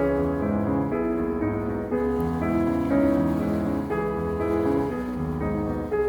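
Gentle piano music, with notes changing about every half second.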